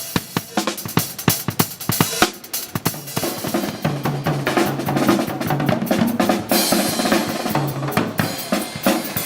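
A drum kit played fast, with dense snare, bass drum and rim hits. A low held note joins about three and a half seconds in.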